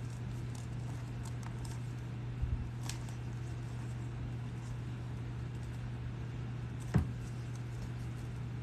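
Steady low background hum, with a faint knock, a light tick and one sharp click about seven seconds in, from small items being handled on the workbench.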